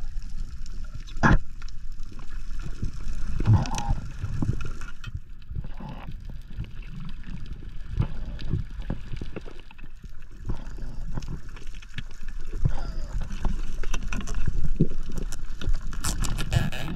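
Muffled underwater sound while free diving, picked up through the camera housing: irregular low knocks and gurgling water, with a few sharp clicks, the first about a second in.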